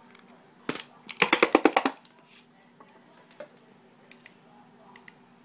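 Plastic clicks from a collapsible solar camping lantern being handled, switched off and pushed closed: one sharp click, then a quick run of about ten sharp clicks, then a few faint ticks.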